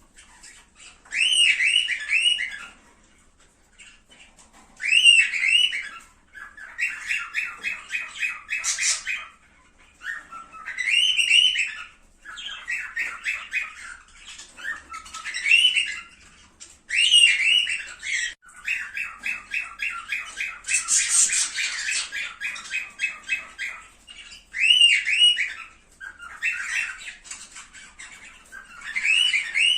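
Cockatiel singing: short whistled, warbling phrases repeated every few seconds, with runs of fast repeated chattering notes in between.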